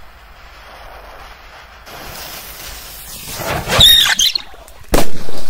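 A cobra firecracker's lit fuse hisses steadily, then it gives a loud burst of hissing and squealing as it shoots smoking across the water. About five seconds in, one sharp, loud bang goes off and rings on.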